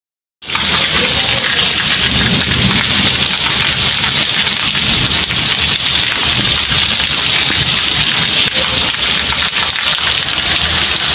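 Heavy rain pouring down on a flooded street and paving, a loud steady hiss that starts suddenly about half a second in.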